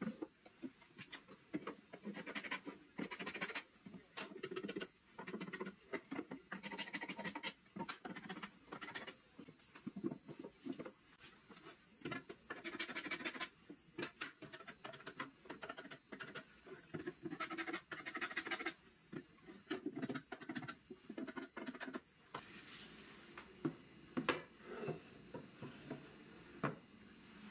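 Solid walnut drawers being slid in and out of their walnut case, with wood rubbing on wood in repeated short scrapes. Sparser light knocks come near the end as the drawers are pushed home.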